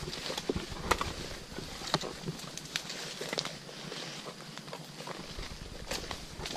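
Footsteps through dry leaf litter and undergrowth, irregular crackles and snaps of leaves and twigs underfoot from walkers in rubber boots.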